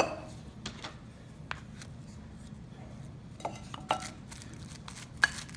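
Metal spoon scraping and tapping against a plastic-lined bowl as a soft cheese mixture is scooped and packed in: a few light, scattered clicks over a faint low hum.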